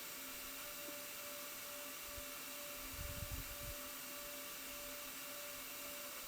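Steady low hiss with a faint electrical hum, room tone while people wait in silence, with a few low thuds about three seconds in.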